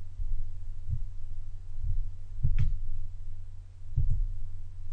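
Steady low hum with a few soft thumps and faint clicks, two of them quick pairs about two and a half and four seconds in.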